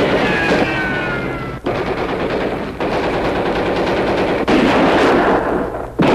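Machine-gun fire sound effect on a 1970 rock single: dense, rapid volleys with a few abrupt breaks, and a falling whistle in the first second or so.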